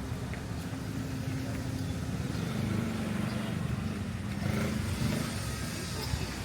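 A motor vehicle's engine running steadily with a low hum, its pitch dropping slightly about halfway through.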